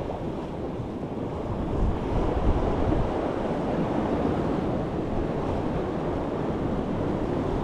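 Sea waves washing against shoreline rocks, with wind buffeting the microphone; the surge swells a little about two seconds in.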